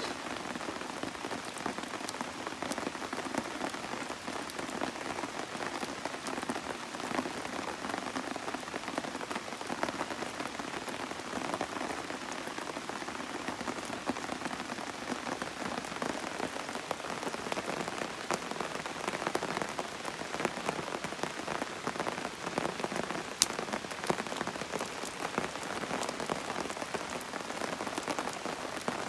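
Steady rain falling, a dense even patter of many small drops. There is one sharp click about three-quarters of the way through.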